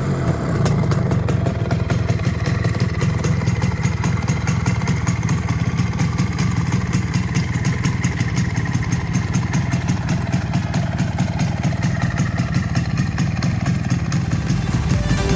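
Single-cylinder two-stroke engine of a restored MZ ETZ 150 motorcycle idling steadily with an even, rapid beat. The engine is freshly rebuilt, with new bearings, crankshaft and piston in a rebored cylinder.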